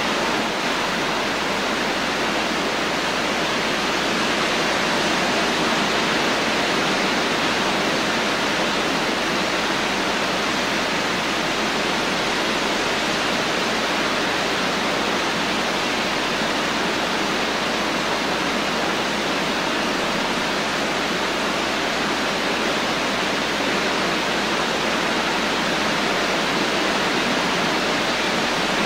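Steady rain, an even hiss that holds the same level throughout.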